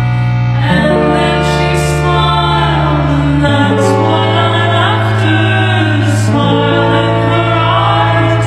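Music: a slow song with sustained chords that change every couple of seconds and a singing voice gliding over them.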